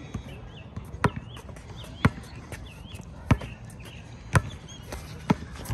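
A basketball bouncing on a concrete court, five sharp bounces about a second apart, as in a slow dribble.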